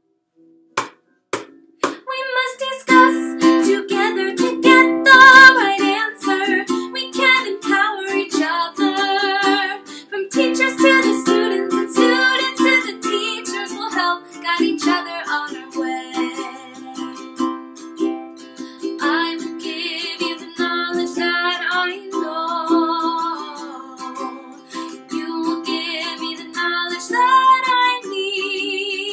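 Ukulele strummed in a steady rhythm with a woman singing over it. The playing starts in earnest about two seconds in, after a few single strums.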